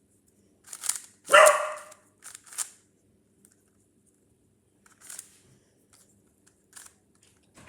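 A dog barks once, loud, about a second and a half in. Around it come short scattered clicks and clacks of a speed cube being turned.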